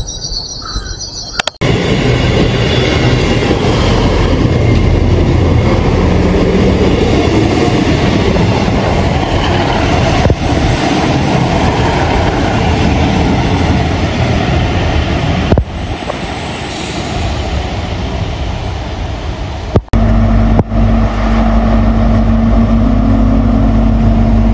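GWR HST (Mk3 coaches with Class 43 diesel power cars) passing at close range: the coaches' loud wheel and body rumble, then about 20 seconds in the steady drone of a Class 43 power car's diesel engine as it goes by. The sound jumps abruptly a few times where the recording is cut.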